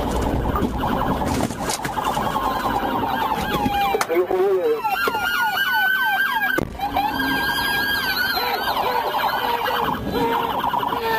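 Police car siren sounding, changing from a slow wail to a fast yelp about four seconds in and back to a wail, with two sharp clicks at the changes.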